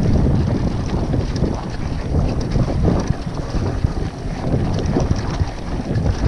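Wind rushing over the microphone of a camera on a moving mountain bike, with the steady rumble of riding over a rough, sandy forest trail and scattered short rattles and knocks as the bike jolts.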